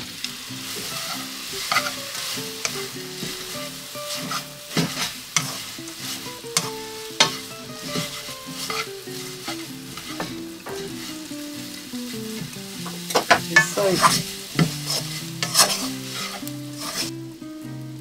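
Dried fish strips (myeongyeopchae) sizzling in oil in a frying pan while wooden chopsticks stir and toss them, with frequent sharp clicks of the chopsticks against the pan. Quiet background music plays underneath, and the sizzle drops away near the end.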